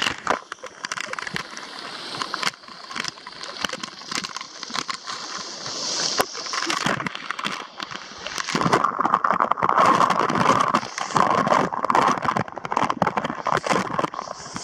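Pool water sloshing and splashing close by, uneven, with many short crackling clicks; it gets louder for a few seconds past the middle.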